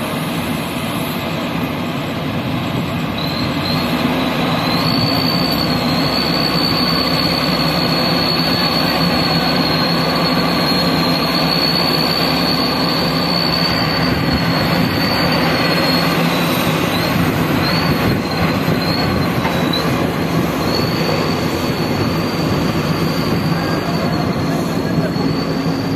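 Heavy earth-moving machinery working hard, a JCB backhoe loader's diesel running under load, with a high, wavering squeal over it that breaks up for a few seconds past the middle and then comes back.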